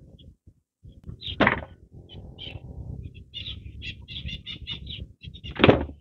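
Folding solar panel being unfolded by hand, its hinged sections flopping open with rustling and two louder knocks, one about a second and a half in and one near the end. Small birds chirp in quick runs in the background.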